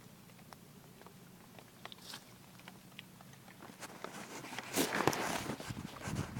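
Grass and vegetation rustling and crunching as it is pushed through or trampled, with a few light clicks at first and a louder stretch of rustling from about four to six seconds in.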